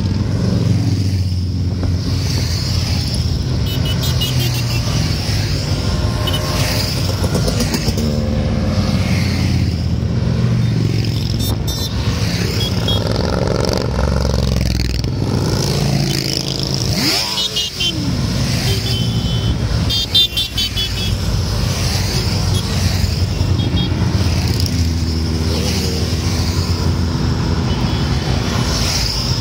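A convoy of cruiser and touring motorcycles riding past one after another, engines running steadily at road speed. The engine note rises and falls in pitch as each bike goes by.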